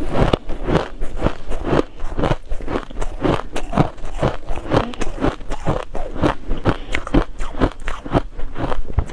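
Close-miked chewing of a mouthful of crushed shaved ice: a steady run of crisp crunches, about three a second.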